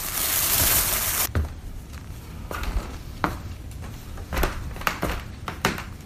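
Sound effects of footsteps and knocks on the bare wooden floorboards of an old cabin, irregular and unhurried, after a burst of hiss that lasts about a second.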